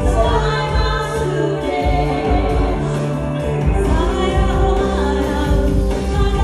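Two women singing a pop song into microphones, backed by a live band with electric guitar and bass guitar.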